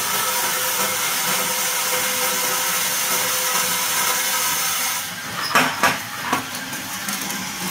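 Green Arabica coffee beans being charged into a coffee roaster: a steady rushing rattle of beans pouring into the drum that stops suddenly about five seconds in, followed by a few sharp knocks over the roaster's running noise.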